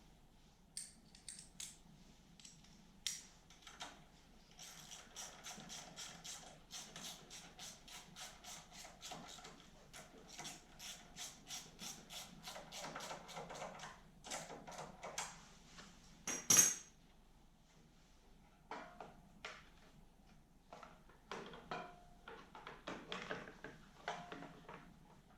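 Hand tools and small metal parts clicking and clinking during reassembly of a snowblower's carburetor and fuel fittings. A run of quick, even clicks lasts several seconds, followed by one sharper click and a few scattered knocks.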